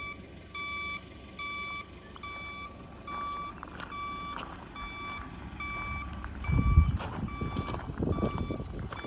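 A vehicle's reversing alarm beeps steadily, a little more than once a second. From about six and a half seconds in there is a low thump, then the crunch of footsteps on gravel under the beeping.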